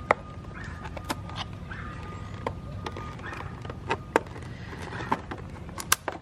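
Irregular sharp clicks and taps, about a dozen, from small parts and packaging being handled over a steady low hum.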